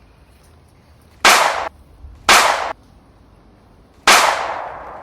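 Three gunshot bangs, each a sharp blast under half a second long, about a second apart and then a longer gap; the last, about four seconds in, trails off slowly.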